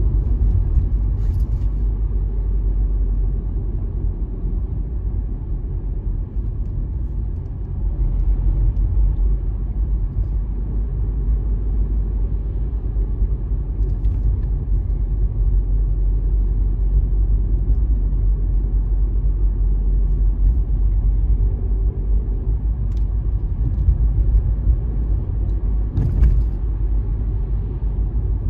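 A car being driven: a steady low rumble of engine and road noise. It dips a little a few seconds in and picks up again, with a few faint short knocks scattered through.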